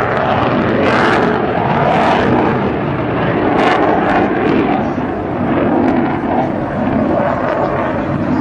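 Jet noise from a General Dynamics F-16 Fighting Falcon flying a display pass: a loud, steady rush of engine noise with a slight dip about halfway through.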